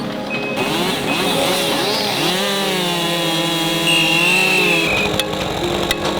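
Chainsaw engine revving up and down, then held at high speed for a couple of seconds before it drops off about five seconds in.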